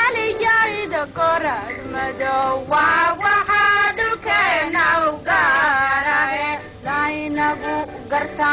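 A high-pitched voice singing a melody in phrases of about a second each, with gliding, wavering notes, over music.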